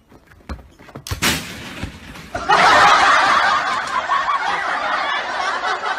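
A sharp bang about a second in, then loud laughter starting about two and a half seconds in and carrying on steadily.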